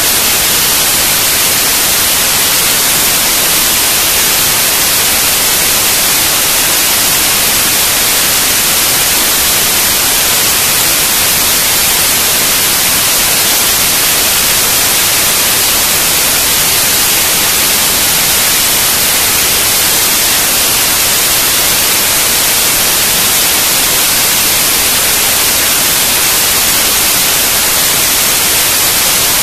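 Loud, steady static hiss, even like white noise, with no tones, clicks or rhythm in it.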